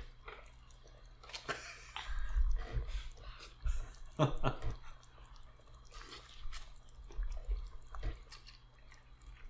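Close-up eating sounds: noodles being slurped and food chewed, with scattered small wet smacks and clicks.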